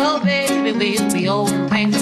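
Background music: a song with a singing voice and guitar over a steady drum beat.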